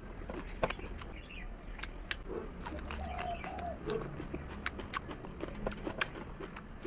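Close-up eating sounds of someone chewing rice and fatty pork: irregular wet clicks and smacks of the mouth, several a second. A brief low wavering sound is heard about midway.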